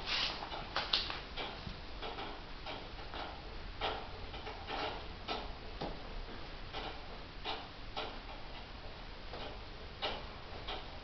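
Light clicks and taps from a baby bouncing in a doorway jumper, about one every half second to second, following the rhythm of the bounces.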